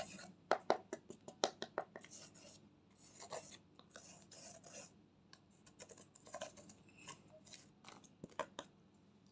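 A makeup brush scraping and digging pressed eyeshadow out of palette pans: a quick run of sharp, scratchy scrapes and clicks in the first two seconds, then scattered scrapes.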